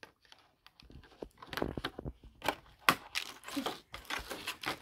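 Clear plastic doll packaging crinkling and tearing as it is handled and pulled open, in a quick string of short crackles starting about a second in.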